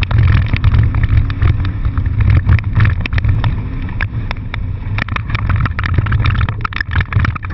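A car being driven hard, heard from inside the cabin: a loud, low engine and road rumble, with many sharp clicks and rattles throughout.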